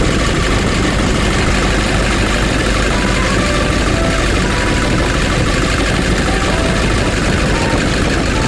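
Nissan Urvan's diesel engine idling steadily after its injection pump has been repaired.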